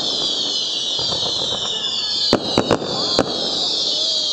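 Firecrackers going off: a quick run of four sharp bangs about halfway through, over a continuous high hiss.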